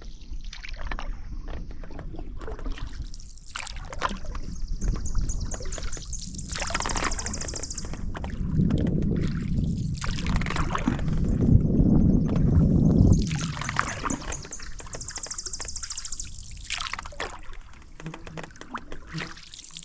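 Canoe paddling: paddle strokes dipping into a creek, with water sloshing and trickling off the blade, in irregular swells that are strongest in the middle.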